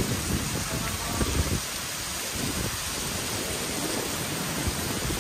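Heavy thunderstorm downpour: a steady hiss of rain falling on pavement, parked cars and trees.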